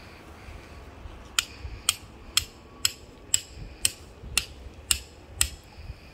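Hammer striking a metal ground stake, driving it into the ground: nine even blows, about two a second, each with a short metallic ring.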